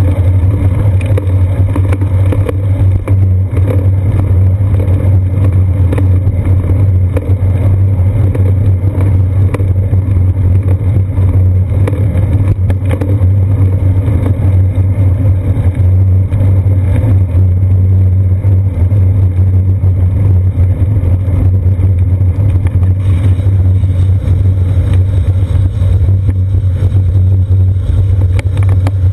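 Steady, loud low rumble of wind and road vibration from a moving bicycle, picked up by a GoPro camera mounted on the bike's seat post.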